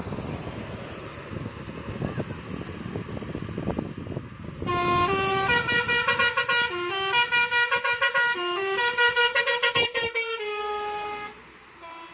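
A bus's basuri telolet horn, a multi-tone musical horn, playing a quick tune of stepped notes. It starts about halfway in and stops shortly before the end. Before it there is only the rumble of passing traffic and engines.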